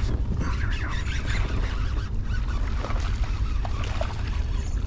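Outdoor sound from a kayak on a creek: a steady low rumble of wind on the microphone over water noise, with a few short faint calls around four seconds in.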